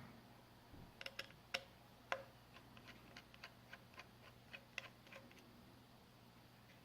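Faint run of small, sharp clicks, roughly three a second, starting about a second in and stopping after about five seconds: a number 0 Phillips precision screwdriver working tiny screws out of a Samsung Galaxy S5's frame.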